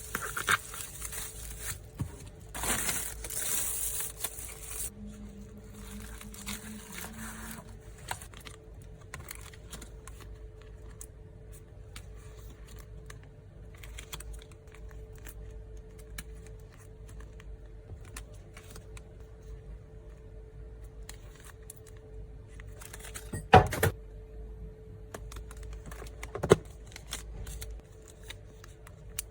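Photocards being packed by hand: plastic sleeves and wrapping crinkle loudly for the first few seconds, then small clicks and taps of handling, with two sharp knocks near the end.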